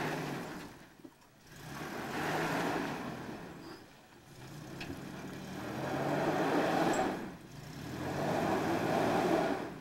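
Pickup truck engine revving hard under load as it climbs a rock ledge, rising and falling in about three surges with the throttle eased off between them.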